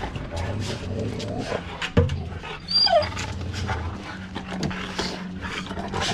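Dogs whining and whimpering, with one short, high, bending whine about three seconds in.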